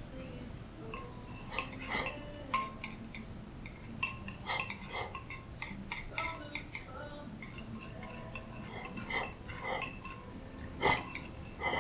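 Chopsticks clicking and scraping against a glazed ceramic rice bowl as food is shovelled from the raised bowl into the mouth. The clicks are irregular, a few of them ringing briefly.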